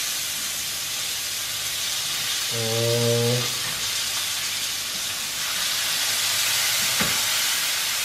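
Ribeye steak sizzling steadily in a hot frying pan as it goes back into the pan and is turned. A short hum sounds about three seconds in, and a single light tap comes near the end.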